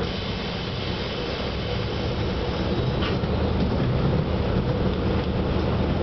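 Diesel railcar heard from inside the passenger cabin while moving: a low engine drone with the noise of the wheels on the rails, getting a little louder from about three seconds in.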